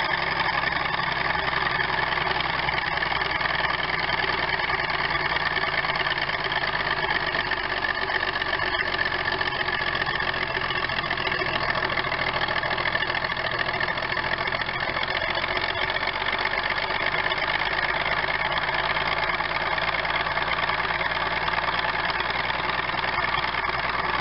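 International Harvester TD-18 crawler tractor's diesel engine running hard, pouring out black smoke: a loud, steady engine sound with no let-up.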